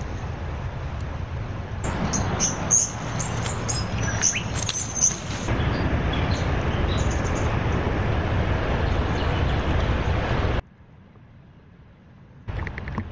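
Wind buffeting the microphone, with small birds chirping again and again between about two and seven seconds in. The sound cuts out abruptly after about ten seconds and comes back just before the end.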